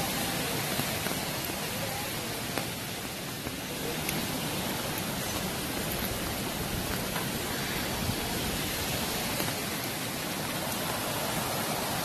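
Steady rushing noise of swollen floodwater and falling rain, an even roar with no pauses.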